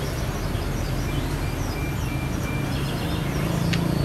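Steady street background noise: a low traffic rumble that swells slightly near the end, with faint bird chirps. Just before the end comes a single sharp click as a xiangqi piece is set down on the board.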